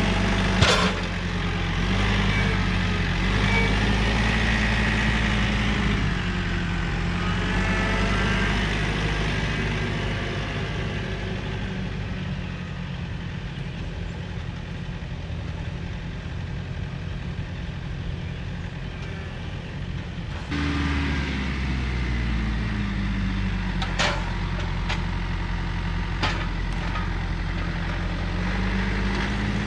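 Rural King RK55 tractor's diesel engine running under load while driving a Woodland Mills WG24 PTO stump grinder; the engine note sags and recovers several times as the cutter wheel works. A few sharp knocks stand out, one about a second in and a couple more near the end.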